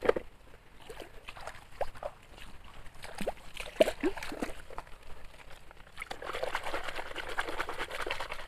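Shallow stream water splashing and trickling as plastic toys are moved about and rinsed in it, with a few light clicks of plastic on wet gravel and dripping plops; the splashing turns steadier about six seconds in.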